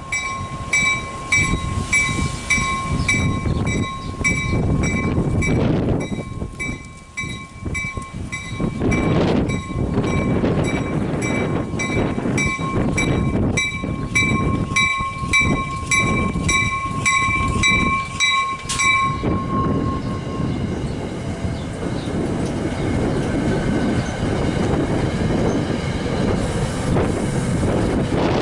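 A train running past with a steady rumble and rail clatter, while a bell rings rapidly and evenly; the bell stops about two-thirds of the way through and the train noise goes on.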